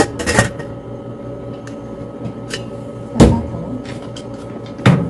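Lid being put on an electric cooker and the cooker handled: a short clatter at the start, a sharp thump about three seconds in, the loudest, and another thump near the end.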